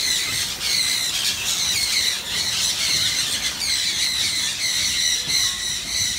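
A flock of many birds squawking together, with harsh, high calls overlapping without a break.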